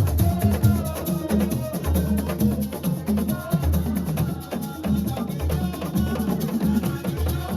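Music with a heavy repeating bass line and a busy drum and shaker beat.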